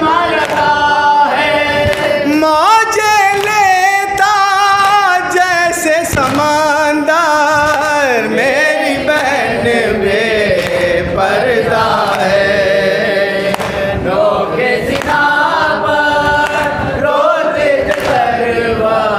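A man chanting a noha, an Urdu lament, into a microphone, in long held notes that waver and slide in pitch.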